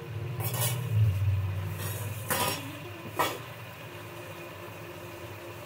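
A low rumble swells and fades over the first couple of seconds, with four short scrapes and clinks of metal on the aluminium cooking pot.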